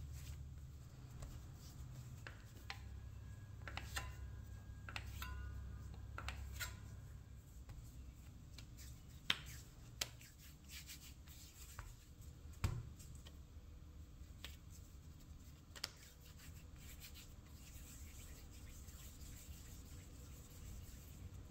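Hands rolling small pieces of soft bread dough into balls on a countertop: faint rubbing, with a few sharp taps and clicks against the counter scattered through.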